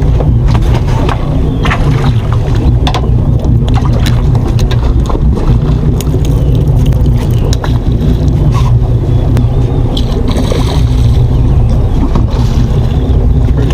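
Boat engine running steadily, with scattered light knocks and clicks.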